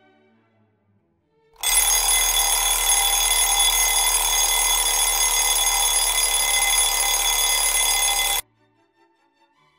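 A loud, steady, harsh buzzer-like tone with many high overtones, starting abruptly about a second and a half in and cutting off suddenly about seven seconds later.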